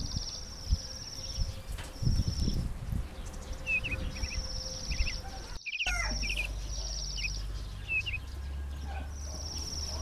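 Chicken wings flapping in short bursts as a rooster flies down, over repeated high trills and short chirps from small birds or insects.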